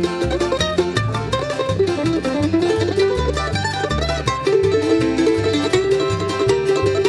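Upbeat bluegrass-style background music with quickly picked mandolin or banjo over a steady bass line.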